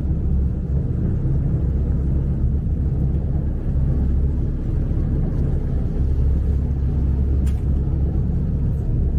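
Passenger ferry's engines running steadily: a low, even rumble with a steady hum underneath, and one brief click about seven and a half seconds in.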